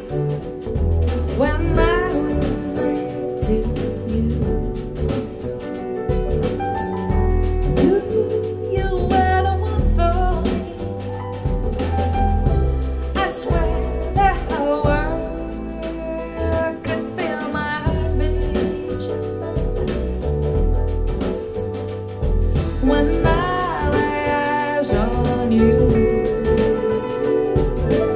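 Live jazz-pop song with singing over bass, drums and piano, played back through KEF R3 Meta bookshelf speakers driven by an SMSL AO300 class D integrated amplifier.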